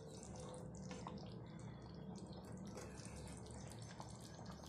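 Coconut-milk curry bubbling faintly in a pan with a steady fine crackle of small pops, while a wooden spoon stirs through it.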